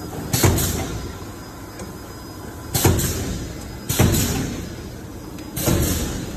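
Automatic mooncake encrusting machine running: a steady low rumble with a sharp hissing burst every second or two, some in quick pairs.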